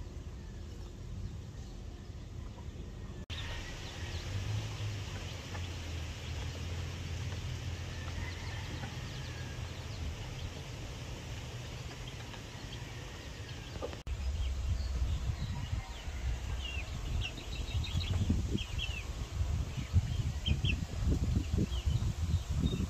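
Backyard poultry flock calling over a low rumble, with quick high peeps in the last third. The background changes abruptly twice.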